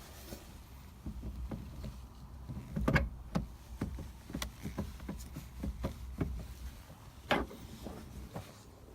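Scattered light clicks and knocks of a steering wheel hub being handled and fitted onto the car's steering column, a few sharper knocks about three seconds in and again near seven seconds, over a low steady hum.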